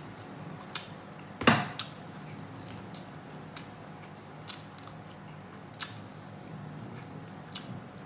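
Close-up eating sounds from biting and chewing meat off the bone: scattered wet clicks and smacks, the loudest about a second and a half in, over a faint steady hum.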